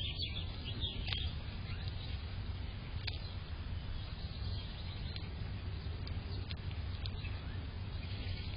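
Birds chirping: a quick cluster of short high chirps in the first second or so, then a few single chirps spaced seconds apart, over a steady low background rumble.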